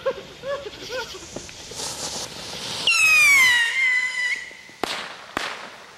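A whistling firework screeching: a loud whistle that slides down in pitch and then holds for about a second and a half, followed by two sharp firecracker bangs about half a second apart near the end. A few short squeaky chirps come in the first second.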